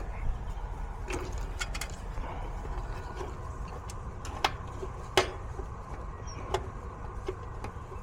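Hand tools clicking and tapping on the metal of an air-conditioning unit: about half a dozen short, sharp metallic clicks, the loudest about five seconds in, over a steady low rumble.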